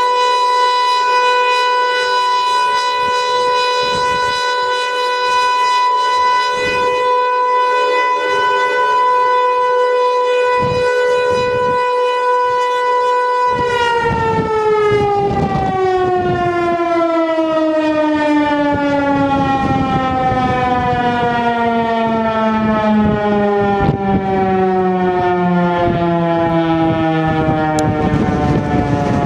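Outdoor tornado warning siren sounding a steady tone for a test. About halfway through it is shut off and winds down, its pitch falling slowly and steadily.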